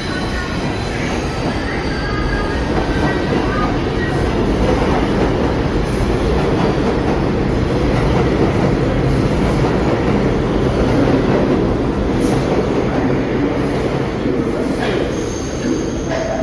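New York City Subway (6) train running express through Union Square on the Lexington Avenue line, a steady loud rumble of wheels on rail that swells through the middle. A thin wheel squeal comes in near the end.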